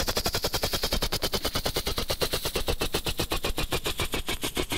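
Helicopter rotor chopping: a fast, even beat of rotor pulses that slows slightly near the end.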